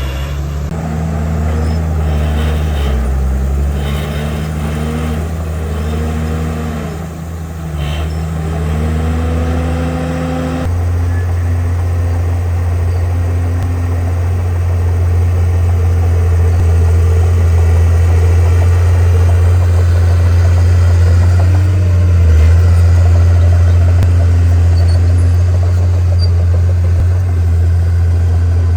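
Bulldozer diesel engine running loud, its pitch rising and falling over and over as it revs up and down. About ten seconds in the sound changes abruptly to a steady, deeper drone that holds to the end.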